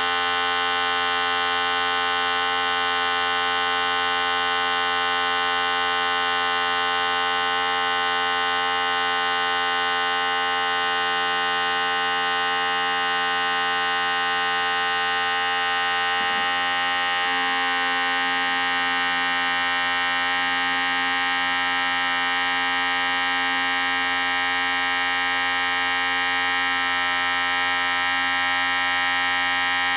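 Electric hair clippers running continuously with a steady buzz, the tone shifting slightly about sixteen seconds in.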